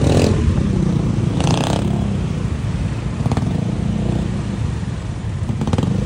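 City street traffic with a motor scooter's small engine running close by: a steady low engine rumble.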